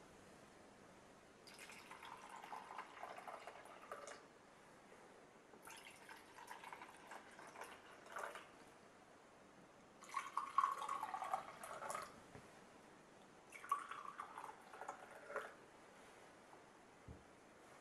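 Liquid poured from a ceramic teapot into enamel mugs one after another: four separate pours of about two seconds each, with short pauses between.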